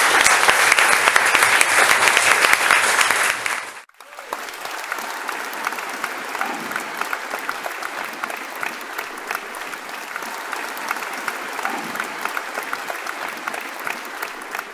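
Audience applauding loudly. After about four seconds it cuts off abruptly, and quieter applause follows.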